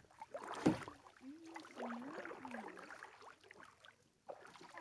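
Kayak paddle working the water, with one sharp splash or knock about half a second in and softer water noise after.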